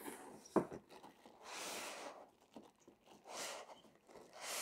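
Cardboard box and packing material being handled during unboxing: a short knock about half a second in, then two rustling scrapes, the first about a second long and the second shorter.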